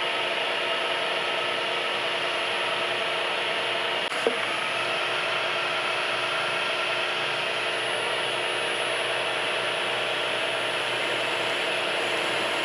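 Milling machine spindle running steadily while a twist drill bores a deep hole into a metal plate, with one short click about four seconds in.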